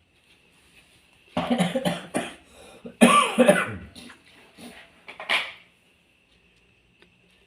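A person with a cough and cold coughing in a few harsh bursts, with a falling cry in between and one more short cough near the end.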